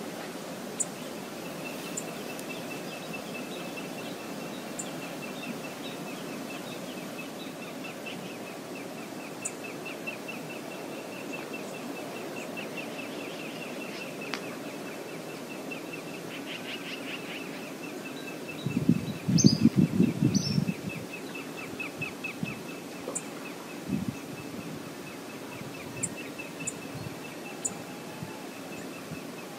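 Outdoor river ambience: a steady rush of water and air, with a small bird's high, rapid trill repeating through much of it. About two-thirds of the way through comes a short burst of low, irregular thumps and splashes, the loudest sound here.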